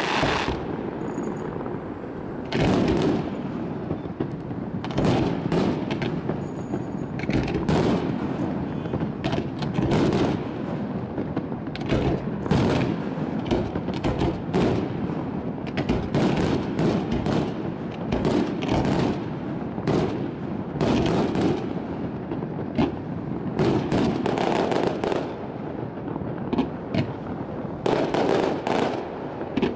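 Aerial fireworks display: shells bursting in a rapid, irregular succession of bangs, with hardly a gap between them.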